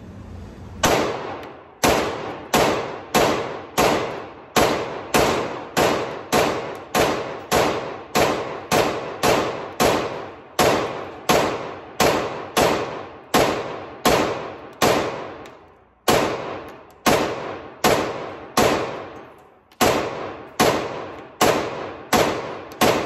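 Ruger-57 5.7×28mm pistol firing a long string of single shots at a steady pace, roughly one and a half shots a second, with two brief pauses. Each shot echoes off the walls of an indoor range.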